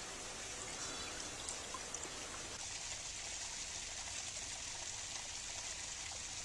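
Running water of a small forest stream and trickling waterfall: a steady splashing hiss that shifts slightly about two and a half seconds in and cuts off suddenly at the end.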